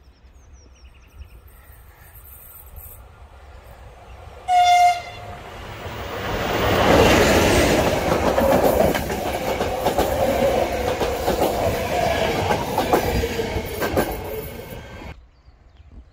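A České dráhy passenger train gives one short horn blast about four and a half seconds in. It then passes close by, loud, with wheel rumble and clattering over the rail joints for about nine seconds. The sound cuts off suddenly near the end.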